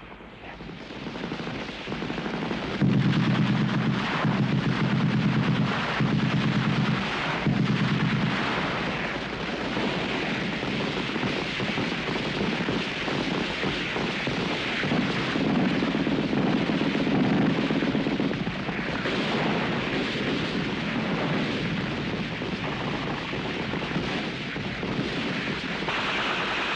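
Sustained battle gunfire: a dense crackle of rifle shots with rapid machine-gun bursts, four short ones between about three and eight seconds in and a longer one a little past the middle.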